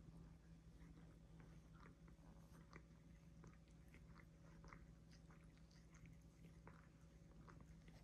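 Faint close-up sounds of two cats grooming each other: small, irregular wet clicks and rasps of tongues licking fur.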